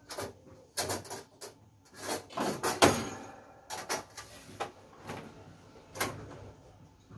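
Handling noise: thick card stock being moved about by hand, in a string of irregular knocks, scrapes and rustles, loudest about three seconds in.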